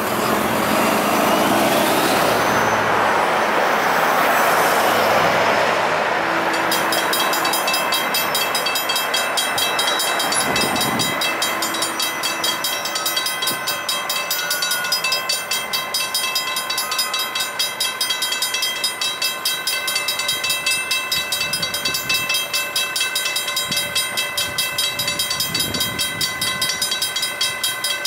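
Railroad grade-crossing warning bell ringing in a fast, even rhythm that keeps going, preceded by about six seconds of loud rushing noise.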